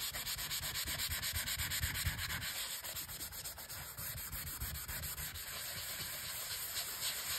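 Abrasive pad rubbed by hand over a steel axe head in quick back-and-forth strokes, about four a second: scuffing a cold-blued finish to even it out.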